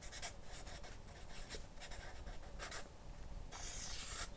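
Marker pen writing and drawing on a paper pad: a series of short, soft scratchy strokes, then a longer stroke near the end as a circle is drawn.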